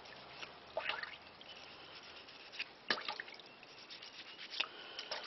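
A glass canning jar being scrubbed with a toothbrush over a sink: a few short, irregular brushing scrapes and water dripping.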